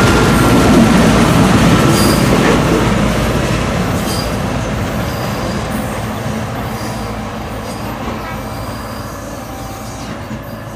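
Train running along the rails with steady wheel-on-rail rumble, a thin wheel squeal at the start and a few clicks over rail joints, growing steadily quieter as it moves away.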